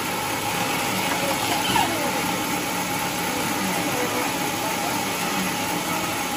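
Sawmill machinery running steadily: an engine-like drone with a constant whine over a dense noise.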